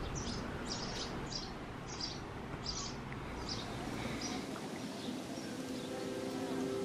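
Insects chirping in a steady rhythm, about two chirps a second, growing fainter over a steady outdoor hiss. Soft music with held notes comes in near the end.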